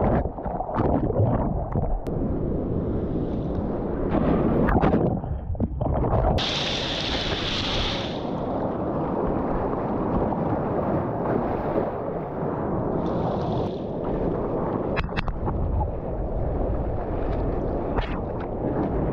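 Seawater rushing and splashing around a surfer's GoPro, with wind buffeting the microphone. About six seconds in, a burst of hissing spray lasts a second or two.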